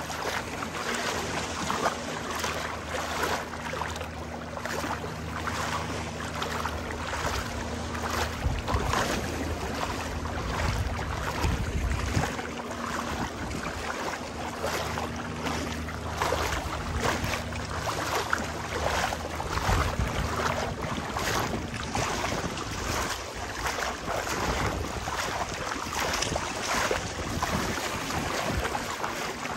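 A boat engine running steadily over splashing water and wind on the microphone; the engine hum grows fainter after about twenty seconds.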